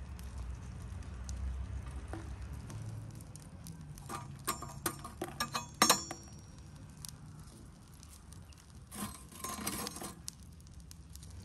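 Metal fire tongs clinking and tapping against a metal samovar's firebox as burning embers are loaded into it: a run of sharp clicks ending in a loud ringing clink about six seconds in, then a short scrape of embers about nine seconds in.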